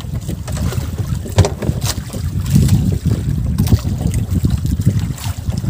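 Wind buffeting the microphone aboard a small wooden outrigger fishing boat at sea, a loud uneven rumble, with a few sharp knocks about a second and a half and two seconds in.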